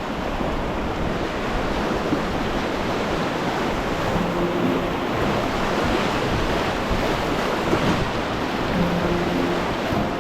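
Steady, loud rushing noise. Two short runs of faint low tones come about four seconds in and again about nine seconds in.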